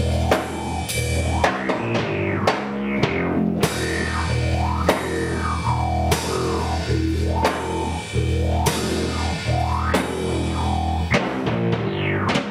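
Heavy rock music: a low, chugging guitar riff over a drum kit with regular drum hits and cymbal crashes.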